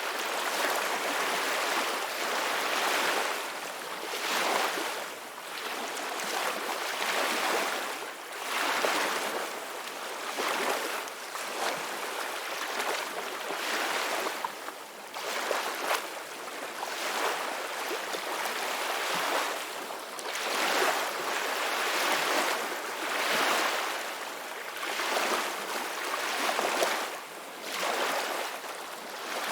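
Ocean waves breaking and washing on a shore, a steady surf that swells and eases every couple of seconds.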